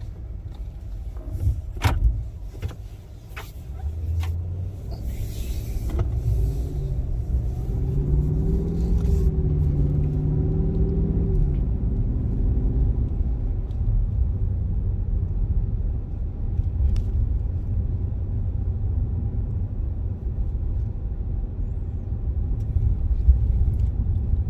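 A car driving along a road, with a steady low engine and road rumble. A few sharp knocks come in the first seconds, and the engine note rises and falls briefly around the middle as the car speeds up and eases off.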